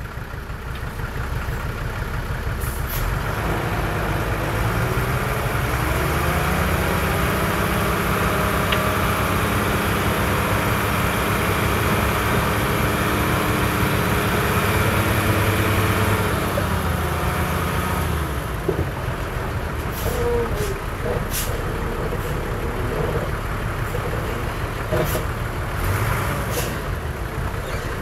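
Komatsu bulldozer's diesel engine working under load while pushing sand: the engine note rises about six seconds in, holds, and drops back about seventeen seconds in. It then runs lower, with several sharp knocks near the end.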